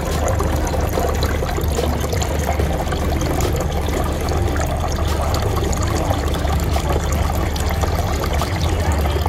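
A small tiered garden fountain with water trickling from its spouts and splashing steadily into a stone basin.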